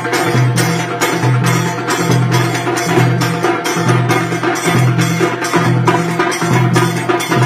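Trinidad tassa drum ensemble playing live: tassa drums, bass drum and hand cymbals in a driving beat, with strikes about twice a second over a repeating low bass-drum pulse.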